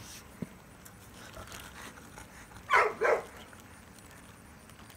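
Two short barks in quick succession from bullmastiffs, about halfway through; a light knock about half a second in.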